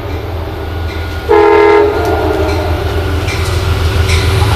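Approaching Amtrak diesel locomotive with a steady low rumble, sounding its multi-tone horn in a short blast about a second in.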